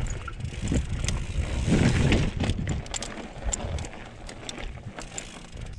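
Trek Remedy 8 mountain bike moving over rock: its tyres rumble unevenly, with scattered light clicks and rattles from the bike.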